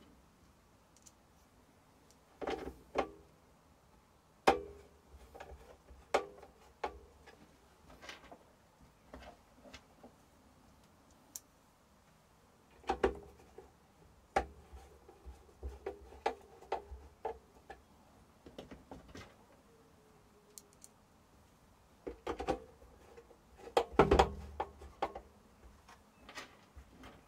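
Scattered clicks, taps and knocks of an air fryer's plastic and metal parts being handled and fitted back together during reassembly, with a louder cluster of knocks near the end.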